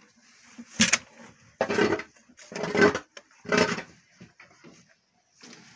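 A cow feeding with its muzzle in a metal bucket among hay. There is a sharp knock about a second in, then three short, rushing noises about a second apart.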